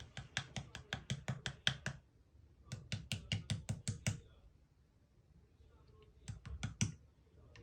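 Clear slime being worked by hand, with trapped air popping out in quick runs of sharp clicks: about ten in the first two seconds, another run of about eight, then a few more near the end.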